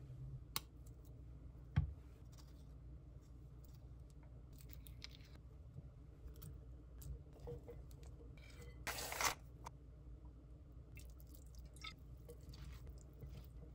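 Food-prep handling sounds: a couple of sharp knocks and a low thump near the start, then a metal spoon scooping avocado and stirring quinoa salad in a glass mixing bowl, with soft squishing and scraping and one longer scrape about nine seconds in.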